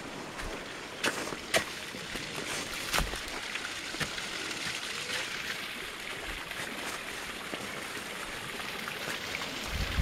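Steady splashing and trickling of a small waterfall, a narrow stream of water dropping about 1.8 m off a clay ledge. A few sharp knocks come in the first three seconds.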